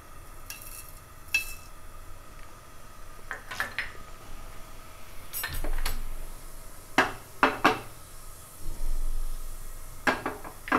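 Cumin seeds and cardamom pods tipped from a small bowl into a nonstick frying pan of hot oil, with a scatter of sharp clinks and taps of dishware against the pan; one clink about a second in rings briefly.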